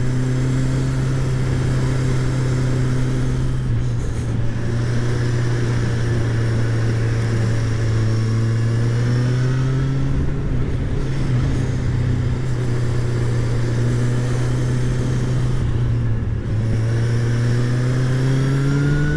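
Kawasaki Z1000's inline-four engine running at a steady pace through bends. Its pitch dips briefly a few times as the throttle eases, then rises near the end, with wind rush under it.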